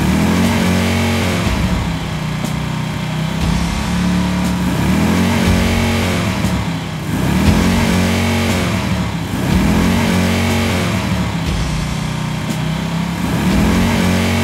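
Heavy engine sound effect for a toy bulldozer pushing at a lump of play-dough: a low running engine that revs up and back down again and again, about every couple of seconds.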